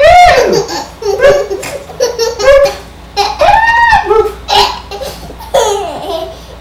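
A little girl laughing hard in a string of high-pitched bursts.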